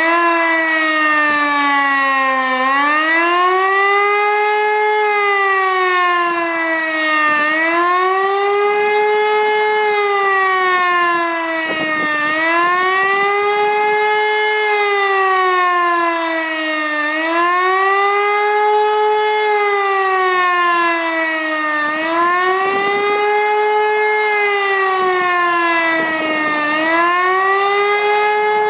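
Civil defence siren sounding the German 'Warnung der Bevölkerung' (population warning) signal as a test: a loud wailing tone that rises and falls over and over, about once every five seconds.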